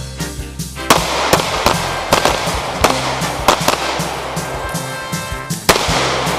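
Gunshots fired in an irregular string on an outdoor shooting range, starting about a second in, some shots close together and the loudest near the end, over background rock music.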